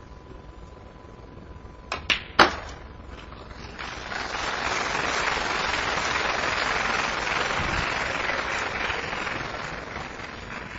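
Sharp clicks of snooker balls struck by the cue and colliding, about two seconds in, followed by audience applause lasting about six seconds.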